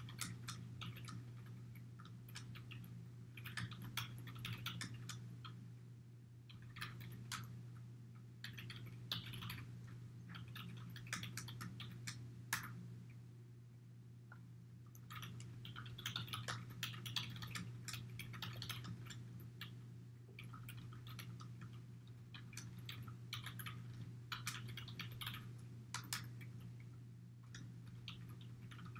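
Computer keyboard typing in short bursts of rapid keystrokes with pauses between them, over a steady low hum.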